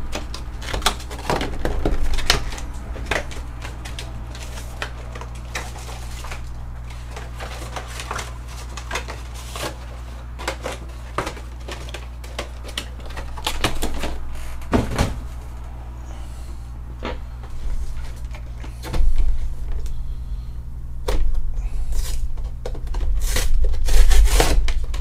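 Scattered clicks, taps and knocks of cardboard collection boxes and a clear plastic case being handled on a table, over a steady low hum. Louder rubbing and rumbling comes in about three-quarters of the way through as a box is handled close to the microphone.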